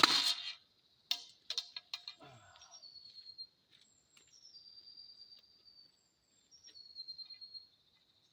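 A bow shot, with the arrow striking a motorcycle helmet in one sharp hit at the very start, followed by a few lighter clicks and knocks. Birds chirp thinly in the background.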